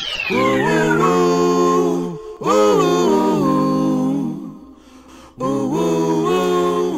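An a cappella intro jingle: voices singing held chords in three phrases, with a short gap before the last. A falling whistle-like sweep dies away in the first second.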